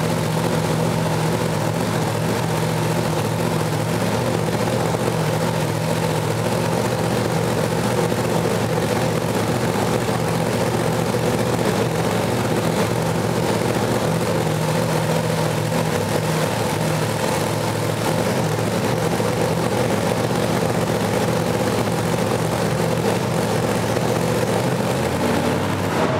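Drag-racing funny car's V8 engine with open zoomie headers running steadily at idle during a warm-up run of a newly installed engine.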